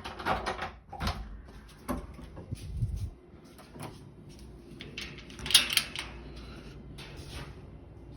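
Irregular household knocks, thuds and scrapes from a neighbour, like drawers and cupboards being opened and shut, with low thuds in the first few seconds and the loudest, sharpest clatter about five and a half seconds in.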